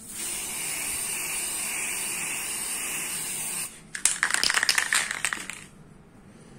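Aerosol spray paint can spraying black paint onto a motorcycle side panel: a steady hiss for about three and a half seconds, then, after a brief break, a rougher, uneven burst of spraying lasting about a second and a half.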